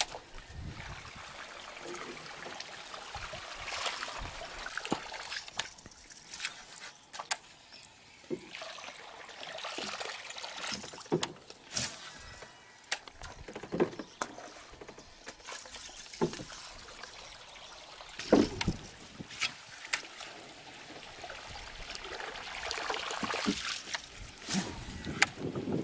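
Repeated small splashes and plops on the water, with scattered clicks and knocks, from a topwater lure being cast and worked across the surface from a small boat.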